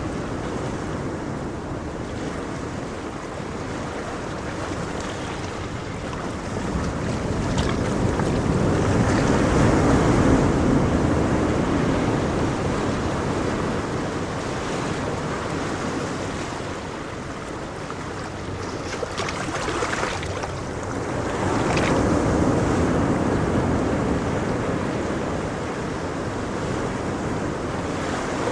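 Ocean waves breaking and washing on a shore, a steady rush that swells to two louder surges, about a third and three quarters of the way through.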